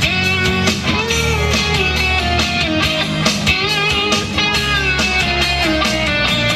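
Instrumental break of a rock song: a lead guitar plays a melody with bent notes over bass and a steady drum beat.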